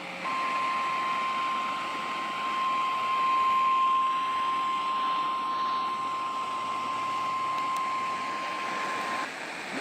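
NOAA Weather Radio warning alarm tone: a single steady high tone near 1050 Hz held for about nine seconds over constant radio hiss, the signal that a warning message follows.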